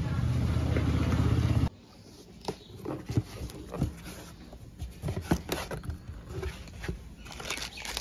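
A steady low hum, like an engine, stops abruptly in under two seconds. Then a cardboard box is opened and its plastic-wrapped ceiling fan parts are handled, with scattered clicks, knocks and rustles.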